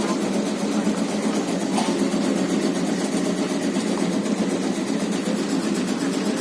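Motorised tobacco-cutting machine running steadily, its engine keeping an even, continuous drone.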